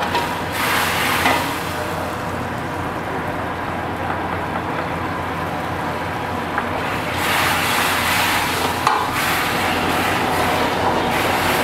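Chilli sauce sizzling in a hot iron wok as a metal ladle stirs it, over a steady low rumble. The sizzling is louder about a second in and again from about seven seconds in, with a few light clinks of the ladle on the wok.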